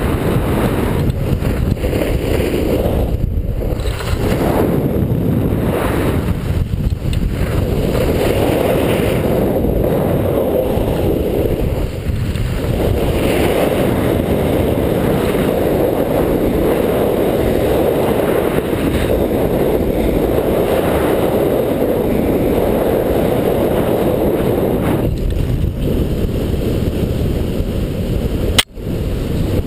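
Alpine snowboard edge scraping and hissing through groomed snow during fast carving turns, mixed with wind rushing over a pole-mounted GoPro; the noise eases briefly every few seconds between turns. A sharp click with a brief dropout near the end.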